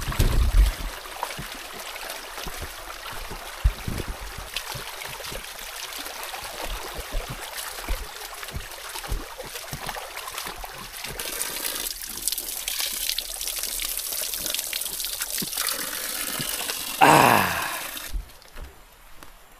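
Shallow stream trickling over rocks, with footsteps splashing and slapping through the water in flip-flops. Near the end a brief loud sound falls in pitch, and then the water noise drops away suddenly.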